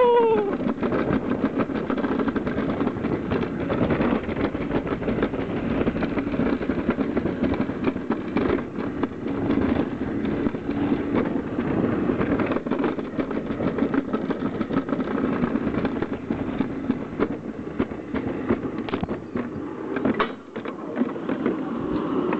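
Summer toboggan sled running fast down a stainless steel trough track: a steady rumbling rattle of the sled on the metal channel, thick with small clicks, with a brief drop in loudness about twenty seconds in as it reaches the straight run-out.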